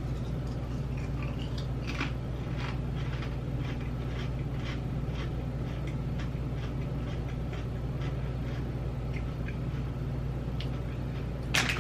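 Potato chips being chewed close to the microphone: a run of short, crisp crunches, with a louder crunch near the end. A steady low hum sits underneath.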